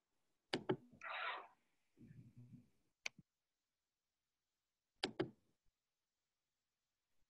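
A few sharp clicks at an open microphone: a close pair about half a second in, a single one near three seconds, and another close pair about five seconds in. Between them come a short rustle and a low muffled rumble, handling noise from someone at the host's computer.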